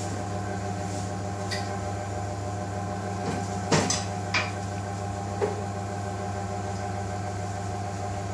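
Steady machine hum of kitchen equipment, with a few short knocks and clatters through the middle, the loudest about four seconds in.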